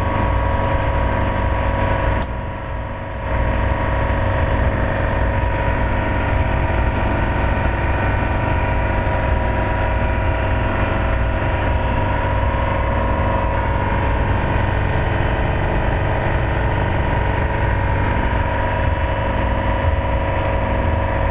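A machine running with a steady hum and whine. It drops briefly about two seconds in, then carries on unchanged.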